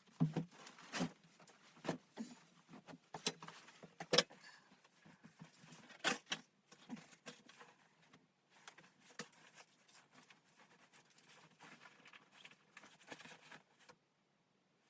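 Irregular knocks, taps and clicks of objects being handled, loudest in the first half and stopping near the end.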